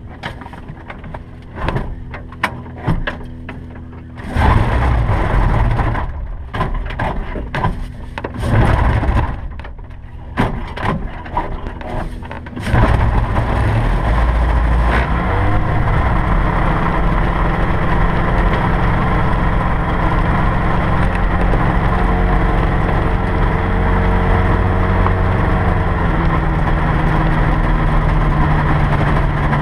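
Light aircraft's piston engine being started: after a few clicks and knocks, it coughs and fires in uneven fits, then catches about 13 seconds in and settles into a steady run.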